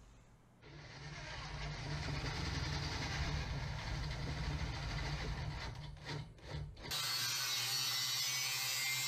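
Corded electric drill boring a bolt hole through a steel flange clamped in a vise. It runs steadily for about six seconds, with a few short stops near the end. About seven seconds in, an angle grinder starts on a steel bar, giving a harsher, higher-pitched steady grind.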